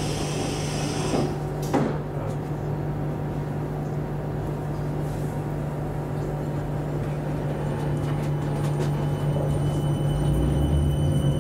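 Class 455 electric train standing at a platform: its sliding doors shut with a single thud about two seconds in, over a steady low hum from the train. Near the end the traction motors start with a low whine that rises in pitch as the train pulls away.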